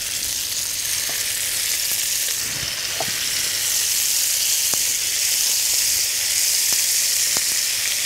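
Beef chunks searing in hot rendered bacon fat in a frying pan: a steady sizzle with scattered spitting pops, growing a little louder after about four seconds as more pieces go in.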